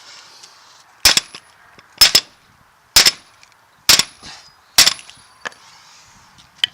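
Hammer blows on a truck driveshaft's U-joint to drive out its bearing cap: five sharp metal-on-metal strikes about a second apart, some with a quick second hit and a faint high ring, then a lighter knock near the end.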